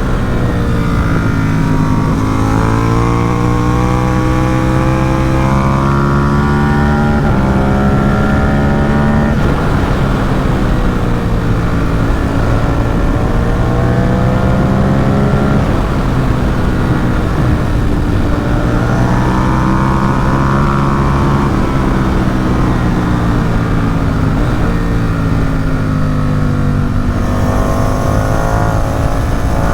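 Ducati Supersport 950 S's L-twin engine through a Competition Werkes aftermarket exhaust, riding under way: the engine note climbs steadily in pitch and drops sharply at each gear change, several times over, with stretches of steadier or falling revs in between.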